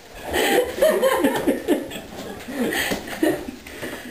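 A few teenagers laughing and chuckling together, with bits of talk mixed in.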